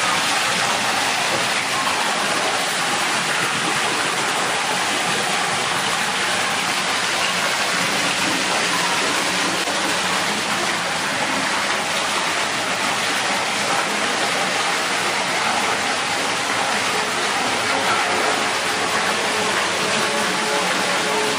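Steady rushing and splashing of water falling from a small artificial rock waterfall into a pool.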